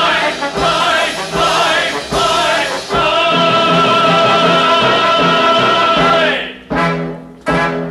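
Chorus singing with a theatre pit orchestra in a live stage musical, building to a long held note with vibrato, then two short orchestral chords near the end.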